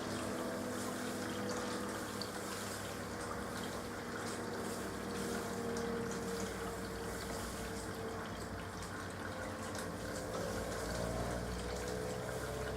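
Hoover AXI washing machine on a delicate 40 °C cycle, with water running steadily through it. A low hum comes up about ten seconds in.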